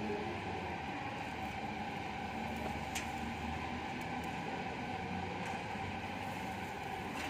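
Steady machine hum and hiss with a constant whining tone, and one faint click about three seconds in.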